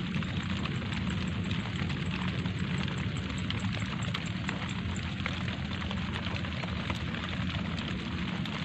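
Light rain falling steadily on leaves and wet ground: an even hiss dotted with many small drop ticks, over a steady low rumble.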